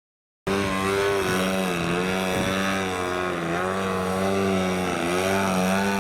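Model airplane engine running, its pitch dipping and rising several times; the sound cuts in abruptly about half a second in.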